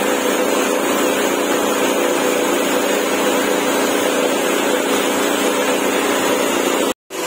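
Steady mechanical hum of running machinery, an even drone with a constant pitch, which cuts out for a moment near the end.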